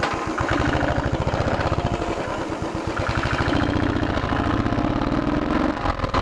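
Motorcycle engine running at low road speed, with a steady rapid exhaust pulse. Its note rises through the second half and drops back near the end.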